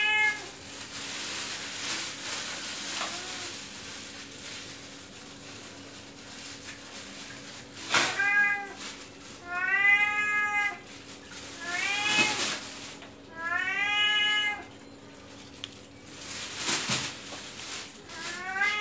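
Domestic cat meowing loudly and insistently, begging for fish. There are about five long meows, most of them in the second half, each rising and then falling in pitch.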